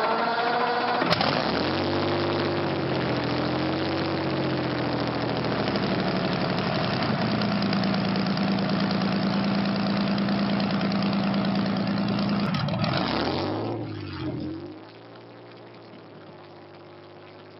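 Huge 41-litre V12 engine in a polished aluminium hot rod, revved up and down and then held at a steady raised speed for several seconds. The revs fall away, and about fifteen seconds in it settles to a much quieter steady idle.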